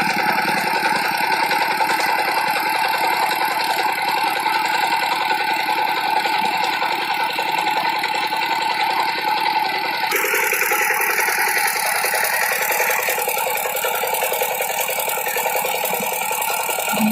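Dongfeng 12 hp single-cylinder diesel engine running steadily while it drives an NS 100 irrigation water pump. The tone of the sound changes abruptly about ten seconds in.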